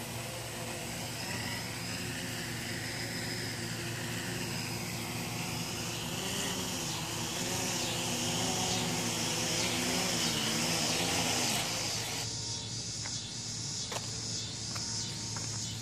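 Small FPV quadcopter's motors running with a whine whose pitch wavers up and down with the throttle, then cutting off abruptly about twelve seconds in as the drone sets down. A few faint clicks follow.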